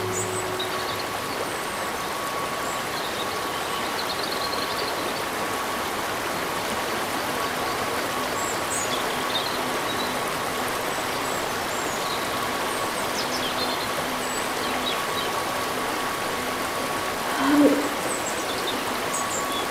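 Steady rain falling in woodland, with scattered high bird chirps and a faint steady tone underneath. About three seconds before the end comes a brief, louder vocal sound from a person.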